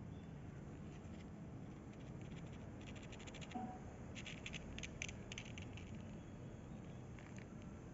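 Newborn kittens stirring: faint scratching and clicking in short clusters about three seconds in, again around four to five seconds in and near the end, over a low steady hum.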